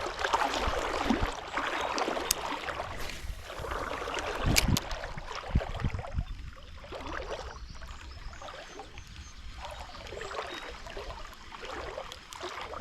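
Creek water splashing and gurgling, louder in the first half, with a couple of sharp clicks.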